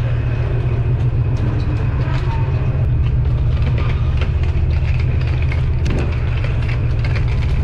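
Wheels of a rolling suitcase running over pavement: a steady low rumble with a rapid, continuous clatter of small ticks.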